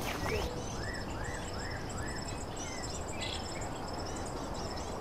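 Outdoor ambience of insects chirping steadily in high pulsed trills, with a small bird giving a quick run of four arched, repeated notes about a second in.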